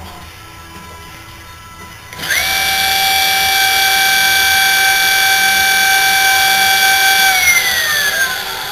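Rebuilt 24-volt, 600-watt permanent-magnet brushed DC motor, on new ball bearings, switched on about two seconds in. It spins up almost at once to a steady high whine, runs for about five seconds, then coasts down with its pitch falling near the end.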